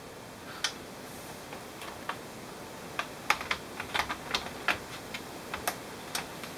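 Plastic parts of an HP G60-230US laptop's case clicking and tapping as the partly reassembled top case and screen are handled and eased toward closing: a dozen or so short, sharp, irregular clicks, coming more often in the second half.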